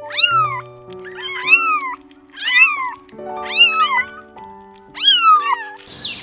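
Domestic cats meowing, a series of about six arched, rising-then-falling meows, roughly one a second.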